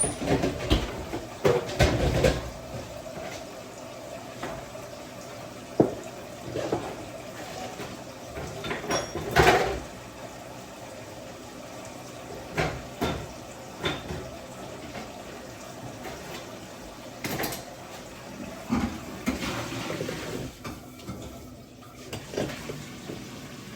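Kitchen handling sounds: dishes, pots and containers clattering and knocked about, with water running from the tap at times.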